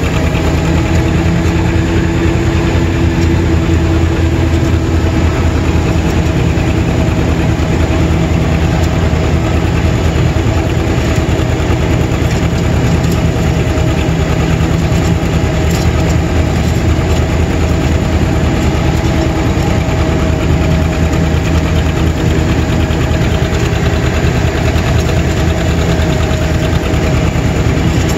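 John Deere 630's two-cylinder engine running steadily under load, pulling a finish mower, heard close to its upright exhaust stack.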